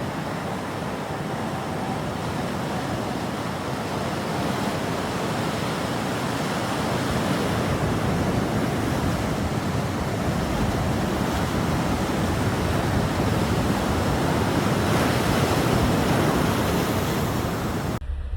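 Ocean surf washing onto a beach: a steady rush of waves that grows a little louder about halfway through.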